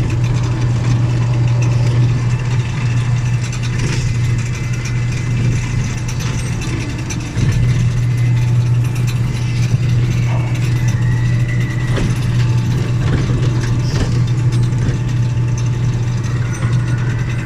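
Amusement-park ride train running, with a steady low hum and scattered mechanical clicking and rattling.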